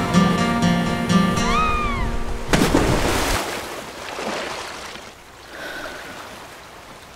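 Music with a pulsing bass ends about two and a half seconds in on a sudden splash of water, like a wave breaking. The splash then fades out as a hiss.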